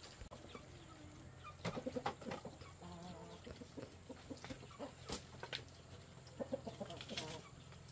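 Chickens clucking in scattered short bursts, with a few sharp clicks among them, over a low steady hum.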